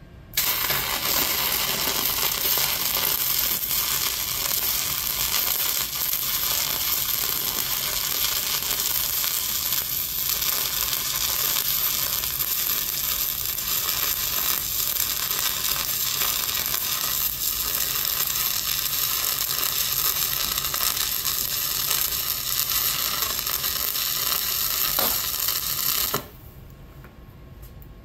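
Stick-welding (SMAW) arc burning steadily as a bead is run with a rod electrode, an even noise that starts just after the beginning and cuts off suddenly about two seconds before the end.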